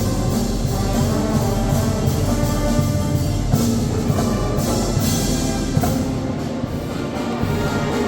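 A Mixe banda filarmónica, a wind band of brass and woodwinds with drums, playing a piece, with regular drum and cymbal strikes under the sustained wind notes.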